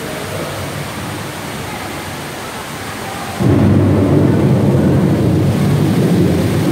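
Steady rush of water, then about three and a half seconds in a loud, deep thunderstorm rumble starts suddenly and lasts about three seconds before fading. It is the rain-and-thunder effect of an interactive Great Lakes water-table exhibit, set off from its touchscreen.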